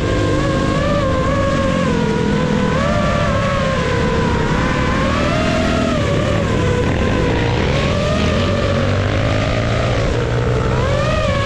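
FPV drone motors and propellers whining steadily, the pitch wavering up and down with throttle changes, over a low engine drone.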